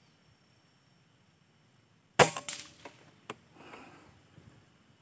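Single shot from a PCP air rifle about two seconds in, one sharp crack that dies away quickly, followed by a couple of light clicks.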